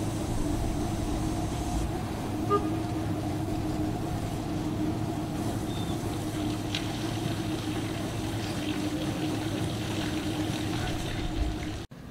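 An engine idling steadily: a low hum with a few steady tones that stops abruptly near the end.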